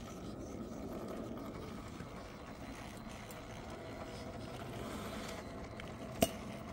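Radio-controlled rock crawler's electric motor and gears whining steadily as it crawls. There is one sharp knock near the end.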